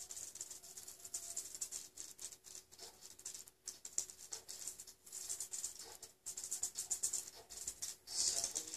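Bristle paintbrush scrubbing oil paint on a flat palette: a dry, scratchy swishing in short irregular strokes, louder near the end.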